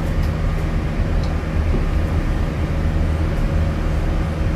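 Running noise of an Alexander Dennis Enviro400H MMC hybrid double-decker bus, heard from inside the cabin: a steady low hum.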